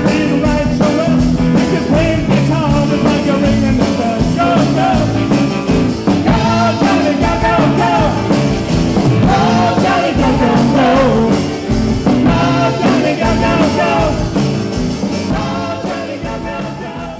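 Live band playing a song with singing, acoustic guitar, violins and a steady drum beat; the music fades out over the last few seconds.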